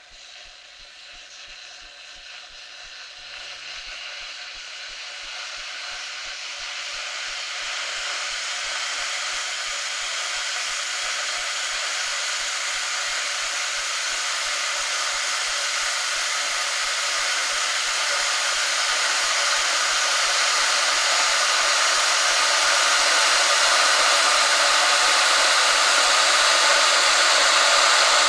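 Electric kettle heating water: a steady hiss and rushing of water starting to simmer, growing steadily louder.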